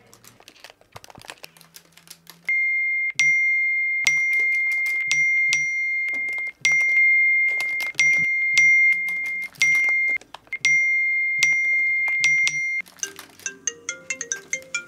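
Fingers typing on a laptop keyboard, a fast run of light key clicks. About two and a half seconds in, a loud, steady, high-pitched electronic tone sets in over the typing, breaking off briefly a few times. Near the end it gives way to a short repeating melody of electronic notes, a phone ringtone starting up.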